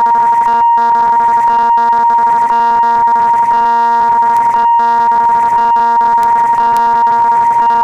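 Railway level crossing warning alarm sounding while the barrier is down: a loud, steady high electronic tone whose ringing pattern repeats about once a second.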